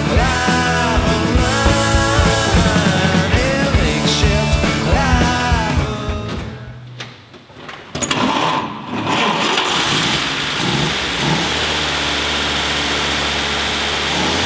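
Rock music with singing, fading out about six seconds in. From about two seconds later, the 1946 International K1's engine runs steadily at idle.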